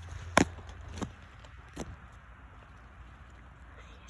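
A few short, sharp knocks: three in the first two seconds, the first the loudest, and one more at the very end, over a low steady rumble.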